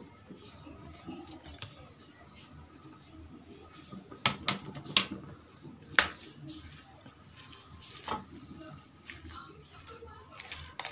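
Chopped taro leaves being mixed by hand into a coarse ground-lentil batter in a steel bowl, with a few sharp clinks against the bowl, the loudest about six seconds in.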